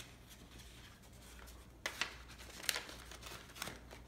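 Paper banknotes and a paper envelope being handled: soft rustling with a few sharper crinkles in the second half.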